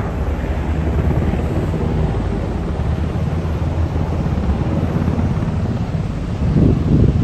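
UH-60M Black Hawk helicopter hover-taxiing close by, its rotor beating steadily over the turbine noise. The sound swells briefly near the end.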